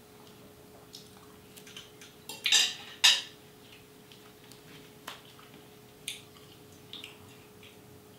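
Tableware sounds of a meal: a metal fork clicking against a ceramic plate now and then, with two louder crackling bursts about two and a half and three seconds in as a crusty bread roll is torn apart by hand.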